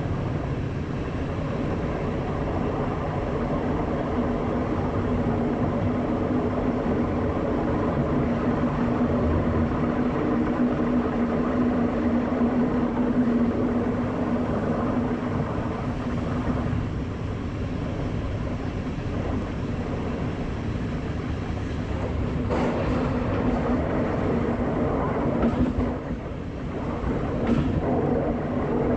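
Class 471 electric multiple unit on the move: steady rumble of the train running on the track with a low, steady hum, and a few short knocks near the end.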